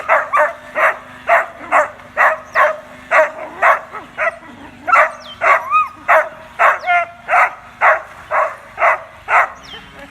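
Dog barking steadily at a remote-control boat, about two barks a second, with a couple of short high whines mixed in near the middle.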